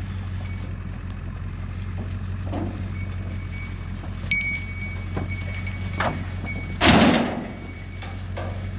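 Sheep hooves knocking on the metal floor of a livestock trailer as ewes step and jump out through the rear door, with one loud clattering bang about seven seconds in. A steady low hum runs underneath.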